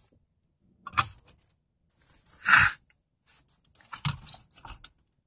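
Scattered rustles and small knocks from handling a metal double-DIN car stereo chassis and its wiring at the dash opening, with a louder rustle about two and a half seconds in.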